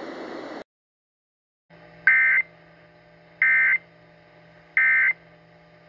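Emergency Alert System end-of-message signal: three short buzzy SAME digital data bursts, each about a third of a second long and about 1.35 s apart, over a faint steady hum.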